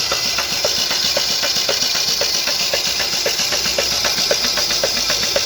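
Chevrolet Corsa's four-cylinder engine running with a regular knocking, about two sharper knocks a second over a faster ticking. The knock comes from a connecting rod with play and a spun rod bearing that has worn the crankshaft.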